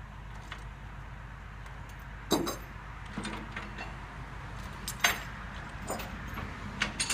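Engine idling low under a handful of sharp metallic clanks and rattles, from the excavator and its hauling vehicle as it is secured with tie-downs.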